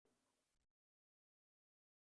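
Near silence: the sound track is almost muted, with only a very faint hiss for under a second, then nothing.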